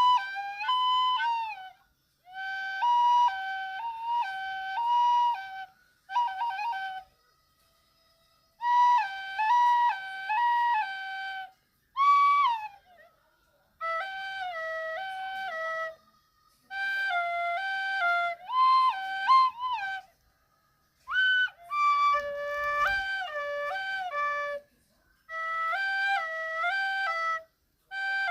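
Recorder imitating a two-tone siren: two notes alternating back and forth in repeated phrases of two to three seconds, with short pauses between them. A few phrases slide in pitch, and some later ones drop to a lower pair of notes.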